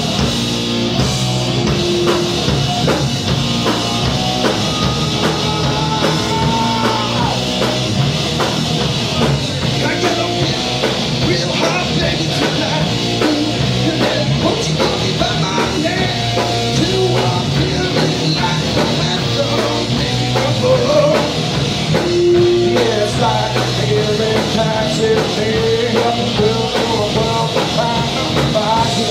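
Live heavy rock band playing loud: electric guitar, bass guitar and drum kit, with a singer's vocals over the top.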